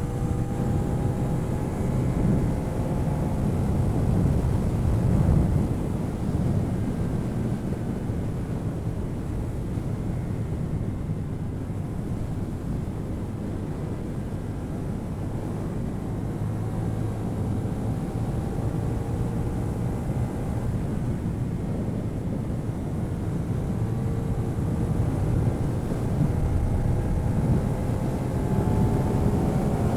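CF Moto 450NK's parallel-twin engine through its stock exhaust, heard onboard while riding. The engine note climbs in pitch several times as the bike accelerates through the gears, over steady wind and road noise.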